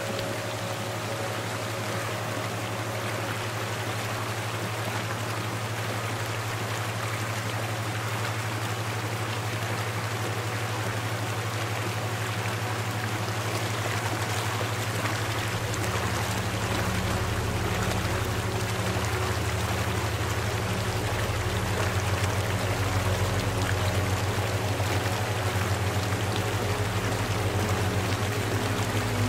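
Steady rushing water sound, like a stream, over a constant low hum; deep, soft sustained tones come in about halfway through and the whole grows slowly louder.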